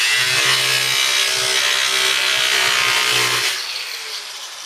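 Corded angle grinder with a cutoff disc running loudly, cutting diamond plate aluminum. About three and a half seconds in it is let off and winds down, its whine falling in pitch.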